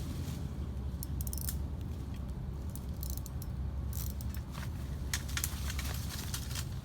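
Spinning or casting fishing reel being cranked, clicking in several short bursts over a low steady rumble.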